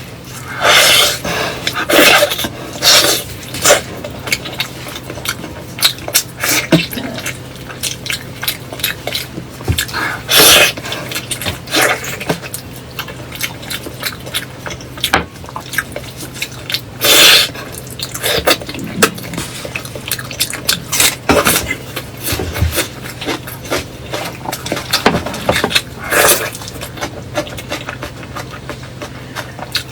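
Close-miked eating sounds: irregular crunches, sharp clicks and wet mouth noises, some louder than others, over a faint steady hum.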